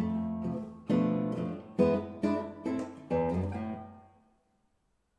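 Solo classical guitar playing the closing bars of a piece: a short run of plucked chords and notes, the last chord struck about three seconds in and left to ring out and fade away.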